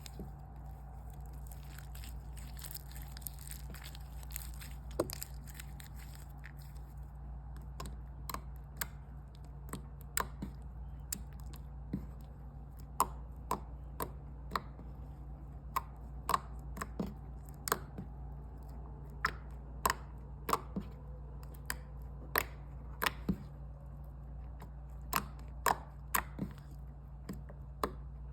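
Sharp, irregular clicks, one or two a second, over a steady low hum; before them, in the first several seconds, a softer crackle.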